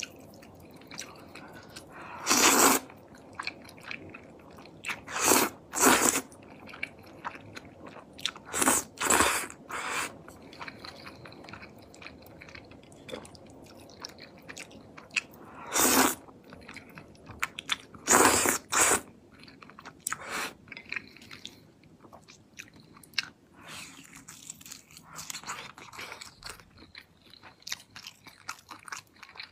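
A person eating jjajangmyeon (noodles in black bean sauce) close to the microphone: about eight loud slurps, bunched in the first twenty seconds, with wet chewing and small mouth clicks between them.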